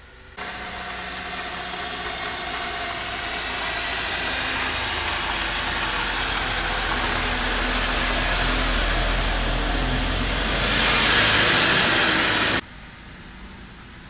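A motor vehicle running and growing steadily louder, with a low rumble, then cutting off suddenly near the end.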